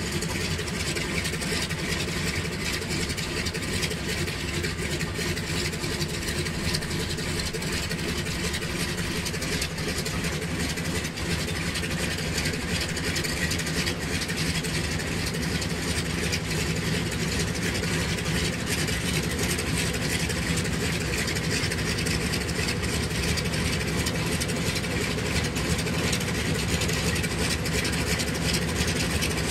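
The three Pratt & Whitney Wasp radial engines of a 1928 Ford 5-AT-B Tri-Motor idling together in a steady, deep, uneven drone, growing slightly louder toward the end.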